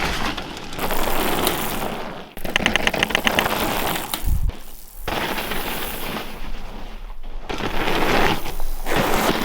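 Mountain-bike riding sounds cut together: rough tyre and trail noise with rattling, a quick run of even clicks about two and a half seconds in, and a short low thud a little after four seconds.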